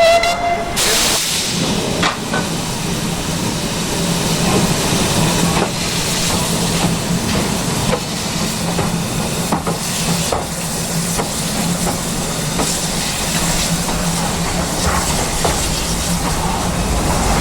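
Steam locomotive hissing steadily as it blows off steam, with a constant low hum beneath and a few light knocks.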